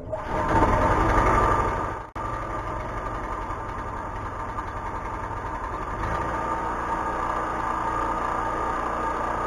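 Small gasoline engine of a ProSource UG2600 portable generator running after start-up, with its new field-exciter capacitor fitted. The sound is loudest for about the first two seconds, breaks off sharply, then resumes as a steady run.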